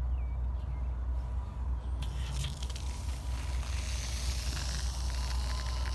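Water hissing from a garden hose, starting about two seconds in, over a steady low rumble.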